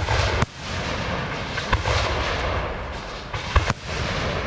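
Aerial firework shells bursting in a display: about five sharp bangs, two of them close together near the end, over a continuous rushing hiss between the reports.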